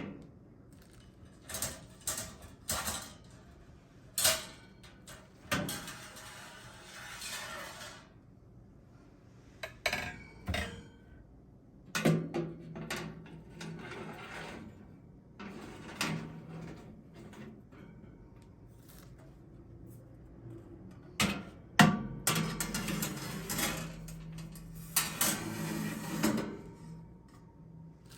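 Kitchen handling sounds: a string of clatters, clicks and knocks of objects being set down and moved, with a few longer stretches of hiss and low hum.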